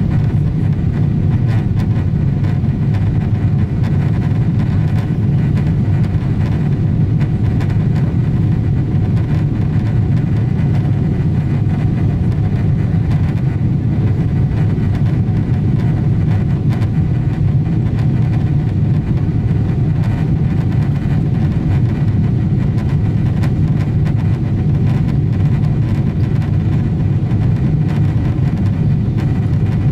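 Steady cabin noise inside a Boeing 777-200 in the climb after takeoff: a deep, even rumble of the jet engines and rushing air, heard from a window seat by the wing.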